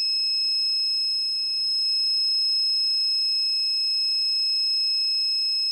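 A car parking sensor's buzzer sounding one steady, unbroken high-pitched tone.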